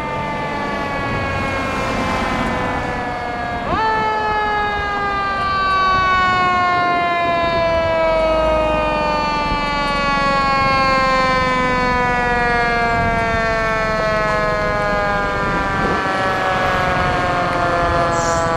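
Fire engine's mechanical siren coasting down in one long, slowly falling tone. It is spun back up quickly about four seconds in, falls slowly again, then is spun up once more at the very end.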